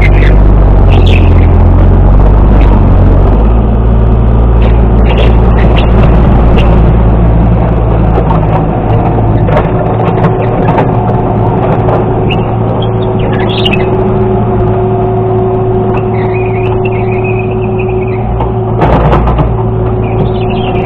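Excavator engine running steadily, with scattered metal clanks and knocks. The low rumble is heaviest for the first few seconds, then eases a little.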